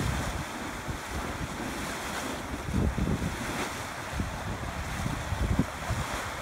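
Wind buffeting the microphone in irregular low gusts, over a steady rushing, churning noise from the steaming, boiling pool of the Mud Volcano mud pot.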